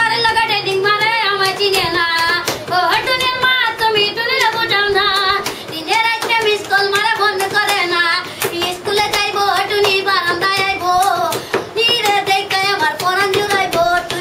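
A boy singing a Bengali song unaccompanied in a high, wavering voice, keeping time with sharp hand taps throughout.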